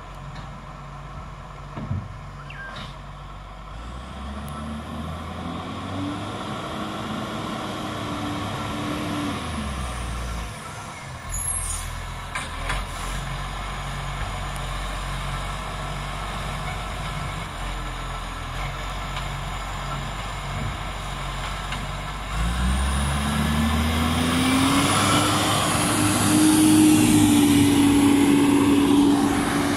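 Diesel garbage truck running, its engine revs rising and falling twice, with short air-brake hisses near the middle. It grows loudest near the end as it comes alongside.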